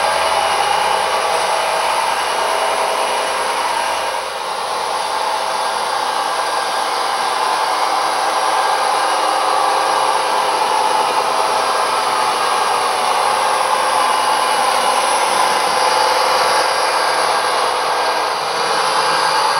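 Soundtraxx Econami sound decoders in HO-scale Athearn SD40-2 models playing a steady diesel locomotive engine sound through small sugar cube speakers. The sound is thin, sitting mostly in the middle and upper range with little bass.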